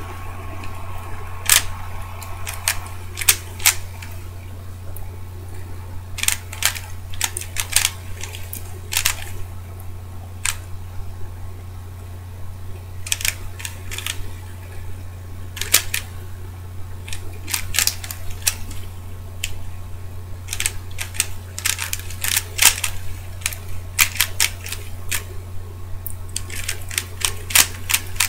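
DaYan ZhanChi 3x3x3 speed cube being turned fast during a solve: sharp plastic clicks as the layers snap round, coming in quick runs with short pauses. A steady low hum runs underneath.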